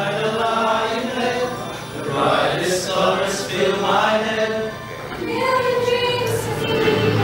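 A mixed choir of men's and women's voices singing together, holding long notes.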